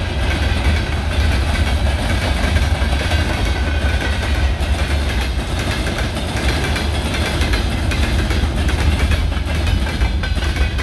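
Freight train rolling past close by: a steady heavy rumble with the continuous clatter of wagon wheels on the rails.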